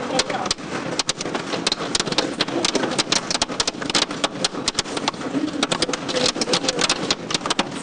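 Hail pelting down: a dense, irregular clatter of many sharp hailstone impacts, several a second, over a steady rushing hiss.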